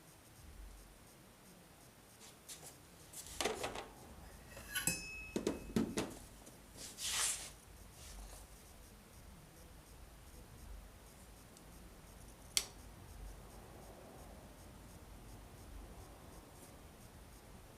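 Tools and metal parts being handled on a lawnmower: a run of clinks, rattles and scrapes between about three and eight seconds in, one of them a short ringing metallic clink, then a single sharp click later.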